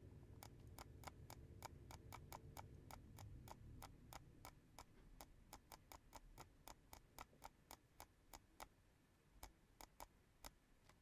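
Faint, rapid clicking at a computer, about four clicks a second, spacing out near the end: each click answers the next yes/no prompt in a run of them.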